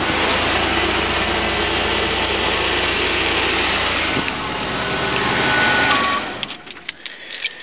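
1989 GMC S-15 Jimmy's 4.3-litre V6 idling steadily on stale gas after months of sitting, with a hiss over it and not sounding happy. About six seconds in the engine stops, and a few clicks and knocks follow.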